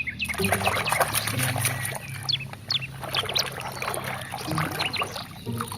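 Water splashing and trickling while toys are washed, with many quick, falling bird chirps over it and a low steady hum underneath.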